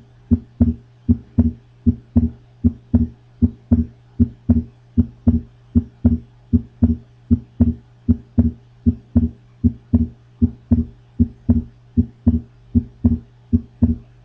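Recorded heart sounds with a split second heart sound (split S2): a steady rhythm of short lub-dub beats over a low steady hum. The lecturer says this splitting can point to left bundle branch block.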